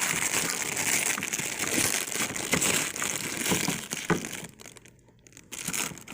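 Packaging crinkling and rustling with a few sharp crackles as a new coffee maker is unwrapped. It is loudest for the first four seconds, drops to a brief lull about four and a half seconds in, then picks up again.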